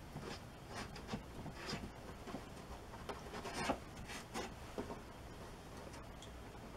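A rag rubbing on a wooden tabletop, wiping away excess wood glue: faint, irregular short strokes, loudest a little before halfway through and dying away over the last couple of seconds.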